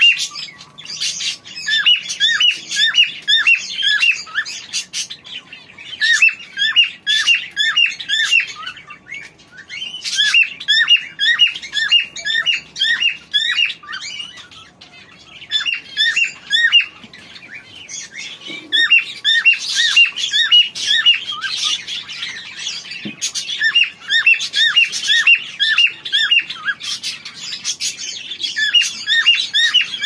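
Cockatiels chirping in rapid runs of short, falling notes, several a second, broken by brief pauses.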